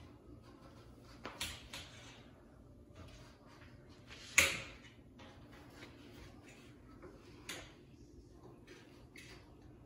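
A few scattered knocks and clicks over a faint steady background, the loudest a single sharp knock about four and a half seconds in, with lighter ones near the start and later.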